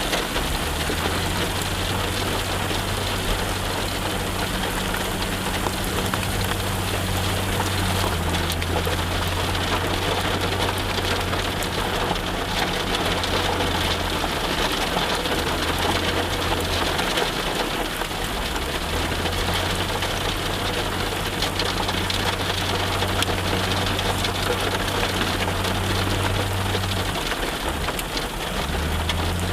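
Steady rain falling, with a heavy machine's engine running underneath as a low hum that drops away briefly a little past halfway and again near the end.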